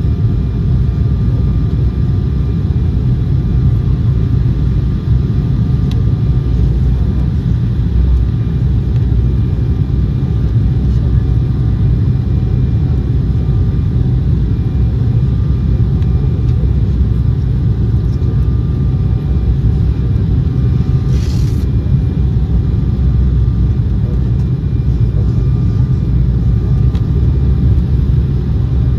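Cabin noise of an Embraer 190 on final approach with flaps down: a steady deep rumble of airflow and the wing-mounted GE CF34 turbofans, with faint steady engine tones over it. A brief hiss about twenty seconds in.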